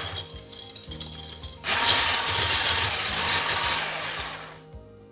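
Electric hand mixer beating eggs and sugar in a bowl until the mixture turns pale. It runs quietly at first, comes on loud about two seconds in, and dies away near the end.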